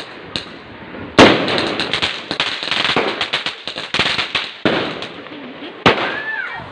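Aerial fireworks going off: a sharp bang about a second in, followed by a few seconds of dense rapid crackling, then further bangs around four and a half and six seconds.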